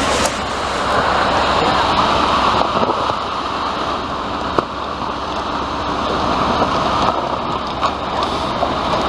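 Concrete pour from a ready-mix truck: a steady rushing noise from the truck running and wet concrete sliding down its chute, with a few light knocks.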